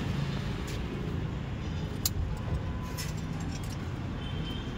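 Steady low rumble of background vehicle noise, with a few short sharp clicks.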